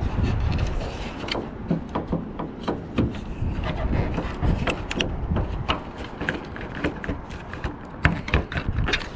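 Screwdriver working a screw loose through an access hole inside a 1990s Toyota Tacoma door, with many irregular clicks and knocks of metal and plastic parts.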